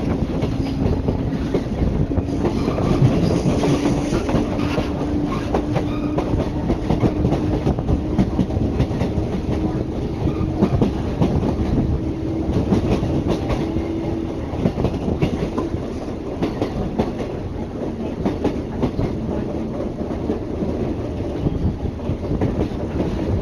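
JR Kyushu electric train on the Kagoshima Main Line running, heard through an open window: a steady rumble of wheels on rail with clickety-clack over the rail joints. A faint hum rises slowly in pitch through the first half.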